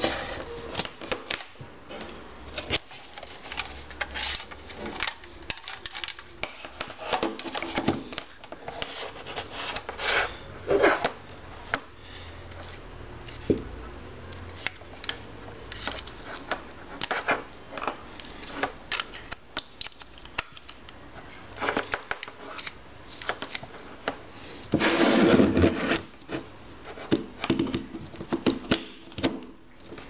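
Handling noise from a plastic Xiaomi power strip and its cord on a wooden desk: a run of irregular clicks, taps and rubs as bands are pulled off and the cable is uncoiled, with a longer, louder scrape about 25 seconds in.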